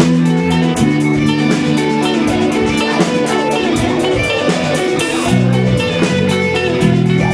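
Live dance-punk band playing: electric guitars and bass chords over a steady drum beat, loud and recorded from the audience.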